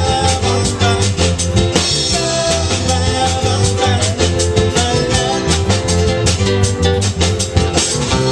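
Upbeat background music with a steady drum beat, bass and guitar, and a singing voice over it.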